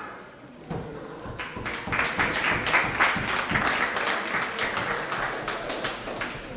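A crowd of onlookers clapping and applauding, building up about a second and a half in.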